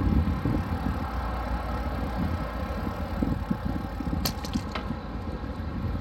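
Wind buffeting a phone's microphone during a bicycle ride, a steady low rumble, with a few brief clicks about four seconds in.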